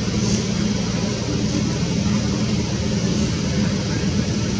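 A steady low engine hum with a constant pitch that does not change.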